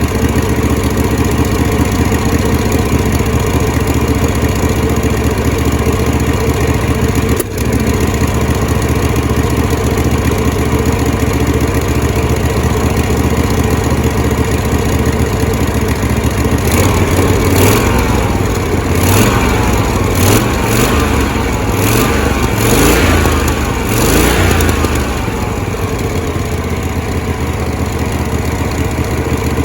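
Propane floor buffer's small engine running on its newly installed fuel regulator. It holds a steady speed, then from about halfway through it surges up and down several times before settling back.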